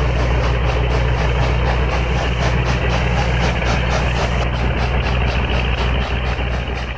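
Steam engine running steadily: a low hum under a quick, even beat of about four or five pulses a second, fading out near the end.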